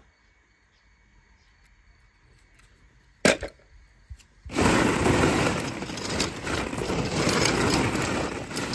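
A sharp click about three seconds in, then from about halfway a dense clatter of hollow plastic play balls knocking together as a hand digs through them.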